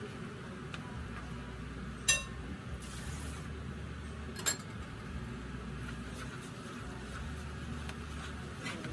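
Two sharp clinks of dishes, like a bowl being set down or knocked, about two and a half seconds apart, over a steady low hum.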